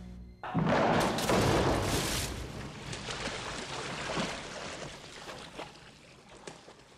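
Water splashing and churning as a shark thrashes in a pool. It starts suddenly and loudly about half a second in, then fades over several seconds, with a few sharp splashes near the end.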